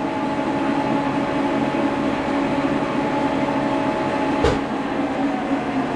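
Milling machine spindle and motor running with a steady hum, then a single clunk about four and a half seconds in as the machine is switched off.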